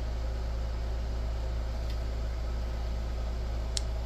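Steady low hum with an even hiss over it, and a single sharp plastic click near the end as a fuse is worked loose in a cheap inline fuse holder.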